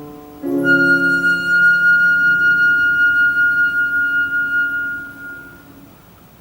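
Concert flute holding one long high note with vibrato over a sustained piano chord struck just before it, both dying away after about five seconds.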